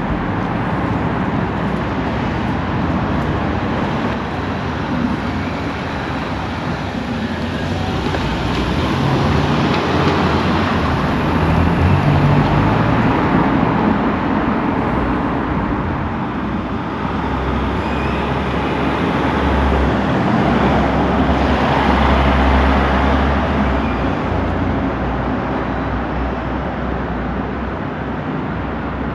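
Road traffic going by: continuous tyre and engine noise that swells and fades as vehicles pass, loudest about twelve seconds in and again about twenty-two seconds in.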